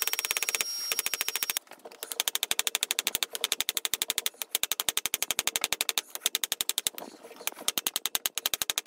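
Ball-peen hammer striking red-hot steel on a small cheap anvil in a fast, steady run of blows, several a second, with the anvil ringing in the first second or so. The smith is drawing the hatchet's handle out into a long, narrow taper.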